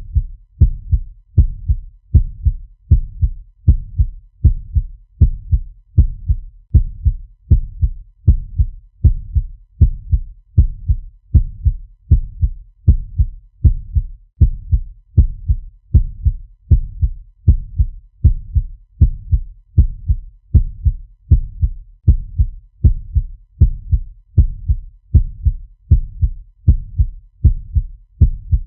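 Fast heartbeat sound effect: low, deep thumps in a steady, even rhythm, about one and a half beats a second.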